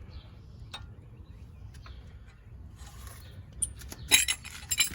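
A few light clicks, then a quick run of sharp metallic clinks and clanks near the end as a heavy wheel and rim is worked onto the hub studs.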